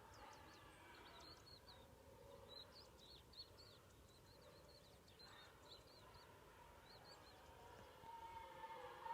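Faint chirping of small birds, many short quick chirps, over a low steady rumble of background noise.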